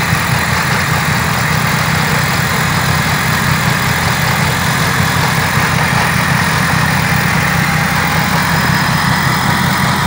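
Valtra N103 tractor's four-cylinder diesel engine running steadily under load while driving a front-mounted Trejon Optimal snow blower. The spinning blower adds an even rushing noise as it throws snow out of its chute.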